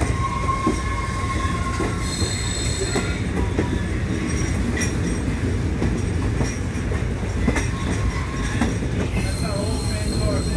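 Train rolling along the track: a steady low rumble of wheels on rail with scattered clacks over the joints. High, thin wheel squeals come through in the first couple of seconds and again near the end.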